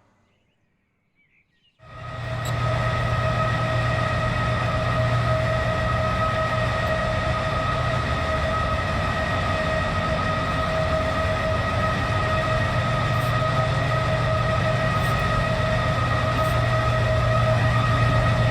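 BNSF train running close by: diesel locomotive engines with a low steady hum and a steady high-pitched whine over them. It starts abruptly about two seconds in and stays loud.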